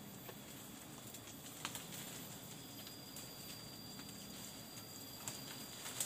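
Forest ambience: a faint steady high-pitched insect drone with a few light clicks and knocks scattered through it.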